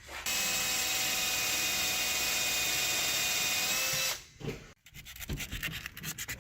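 Power drill running steadily with a high whine for about four seconds, then cutting off, followed by quick repeated scratching strokes.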